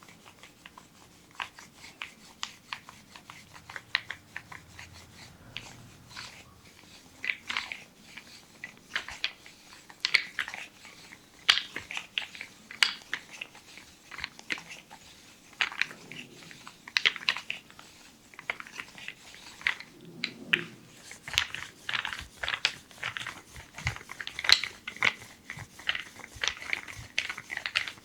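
Hands massaging an oiled leg and foot: many short, irregular wet clicks and slaps of skin on skin, coming thicker near the end.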